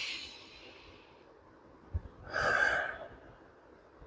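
A man breathing hard through the nose during a yoga breathing exercise (pranayama): one long breath trailing off at the start, and another about two seconds in.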